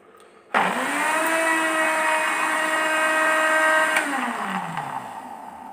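Electric blender motor spinning a free-turning blade assembly: it starts about half a second in and quickly speeds up to a steady whine. About four seconds in it is switched off and winds down with falling pitch. The blade turns easily here, unlike the jammed jar that only hums without spinning.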